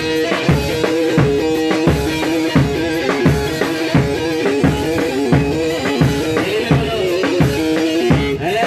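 Bağlama (saz) playing a melody in the saba makam over a steady drum beat, with a kick about every 0.7 seconds: grani dance music.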